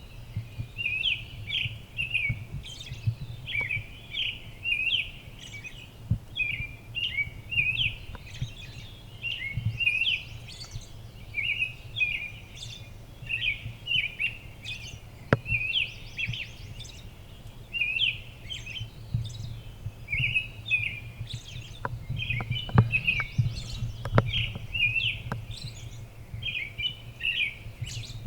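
Birds chirping: a steady run of short, high chirps, one or two a second, over a low steady rumble, with a few sharp clicks in the later part.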